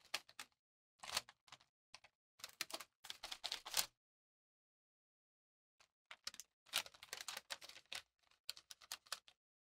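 Light crinkling of paper and quick clicky ticks as gloved hands handle a paper lining, press a sheet down onto wet epoxy and spread epoxy with a wooden craft stick. The sounds come in short clusters, with a pause of about two seconds in the middle.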